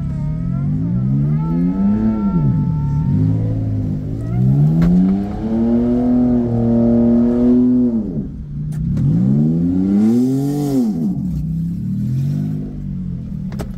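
The electro-hydraulic pump of a 2004 BMW 330Ci convertible's power soft top whining as the top is raised, its pitch rising and falling through several stages and dipping briefly a few times. A few sharp clunks from the top mechanism come around the middle and near the end.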